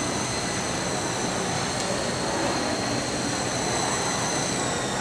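Small electric motors and rotors of a toy coaxial RC helicopter hovering, a steady high whine of several tones over an even hiss.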